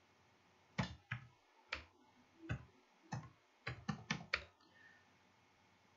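Faint computer keyboard typing: about nine separate key taps, unevenly spaced, over three or four seconds, then it stops.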